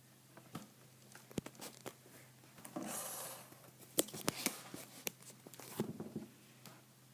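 Hands working on an RC car's wiring and parts: scattered small clicks and taps, with a brief tearing or rustling noise about three seconds in.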